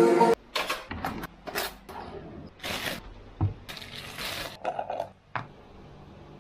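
A crinkly packet wrapper being handled and crumpled, rustling in irregular bursts that stop about five seconds in.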